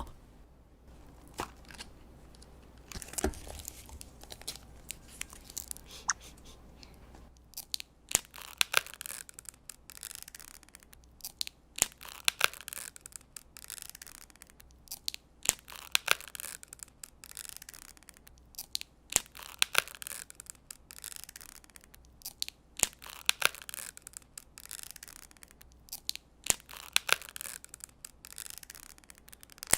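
Gift-bag packaging torn and crinkled open by hand: after a few quieter seconds with small clicks, a long run of short rustling tears comes about once or twice a second.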